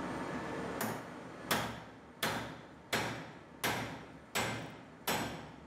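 Bench vise handle being spun to move the jaw, its sliding handle bar clanking at the end of each stroke: seven sharp clanks about 0.7 s apart, each trailing off briefly.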